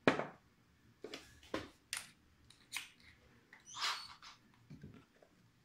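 Handling noises of wooden boards and tools on a wooden tabletop: a series of separate knocks and clicks, the loudest at the very start, with a short rustling scrape about four seconds in.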